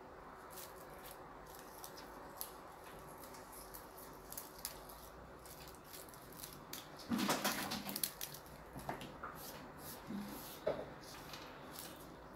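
Scissors snipping dry corn husk, with light scattered clicks and the rustle of husk and cotton fabric being handled; a louder rustle comes about seven seconds in.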